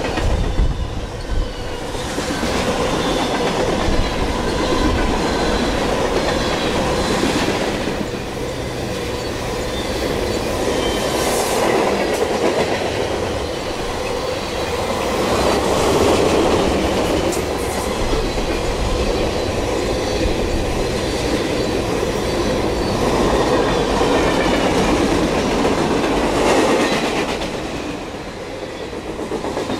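Freight cars of a mixed freight train rolling past close by: a steady rumble of steel wheels and a clickety-clack over the rail joints, swelling and easing as the cars go by, with a few brief high wheel squeals.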